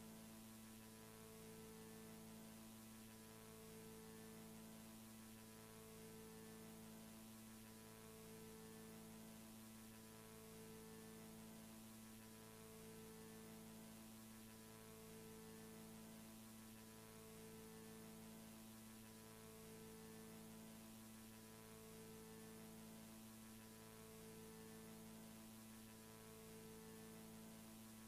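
Near silence: a faint, steady electrical hum with hiss, part of it pulsing on and off about every two seconds. This is the noise floor of a silent VHS transfer with no soundtrack.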